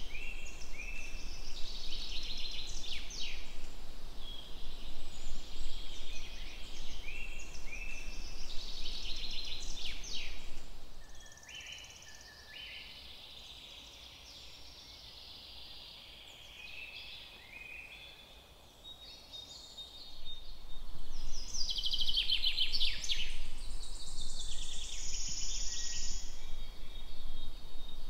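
Several songbirds singing in short, repeated chirping phrases over a low rumble. The rumble and much of the birdsong drop away for several seconds in the middle, then come back.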